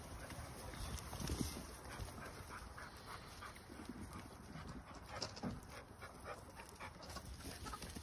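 Faint, irregular rustling and shuffling of a crowd of goats jostling close together on straw, with scattered small knocks.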